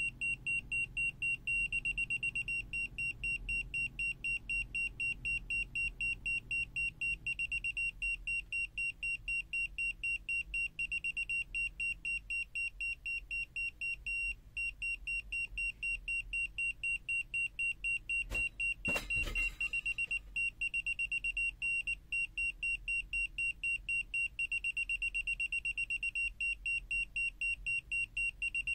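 BSIDE X1 multimeter's non-contact voltage detector beeping: a fast, even series of high-pitched beeps, several a second, the alarm that it is sensing AC mains voltage. A single knock comes about two-thirds of the way through.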